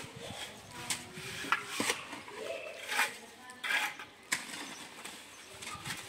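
Scattered sharp clinks and knocks, like dishes or utensils being handled, with a voice heard briefly now and then.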